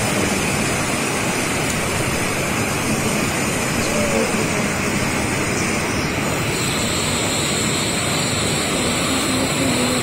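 Waterfall pouring down a steep rocky chute: a loud, steady rush of white water.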